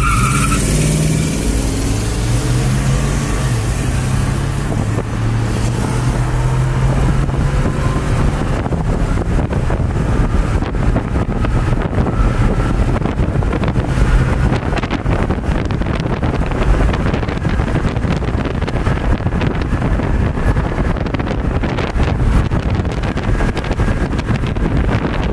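Pickup engines accelerating side by side, heard from inside a 2010 Ford F-150's cab with the window down: the F-150's stock 4.6 L 3-valve V8 and a 1985 Chevrolet C10's cammed, bored-over 350 V8. After about eight seconds the engine tones fade under steady wind and road noise with buffeting at the open window.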